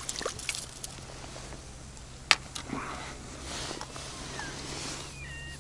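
Faint rustling as a freshly landed roach is handled on a reedy bank, with one sharp click about two seconds in and a few short bird chirps near the end.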